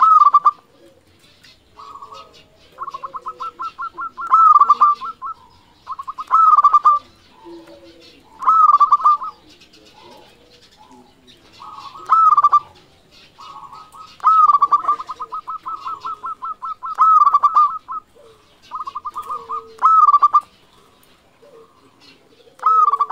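Zebra dove (perkutut) cooing its staccato song: phrase after phrase of fast, short notes, each phrase ending in a few louder, drawn-out coos, with brief pauses in between.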